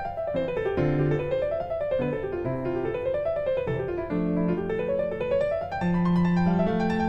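Background piano music: quick runs of notes rising and falling over held lower notes.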